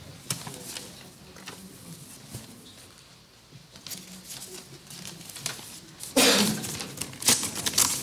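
Small clicks and faint rustling of handling noise, then from about six seconds in louder bursts of rustling.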